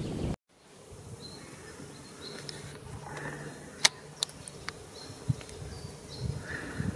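An insect buzzing low and steadily for a few seconds over faint natural ambience, with three sharp ticks about four seconds in.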